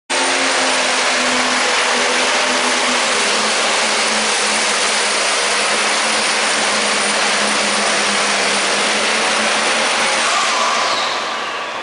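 Pulling tractor's engine running flat out as it drags a weight-transfer sled, a loud steady drone with a high whine over it. A little after ten seconds it comes off the throttle and the whine falls away in pitch as the level drops.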